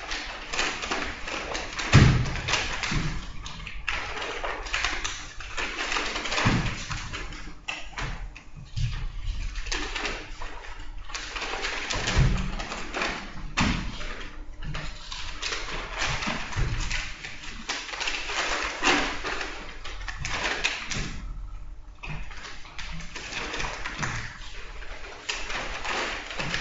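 Papers being handled and rustled on a table, with repeated thumps and taps as things are set down. The loudest thump comes about two seconds in.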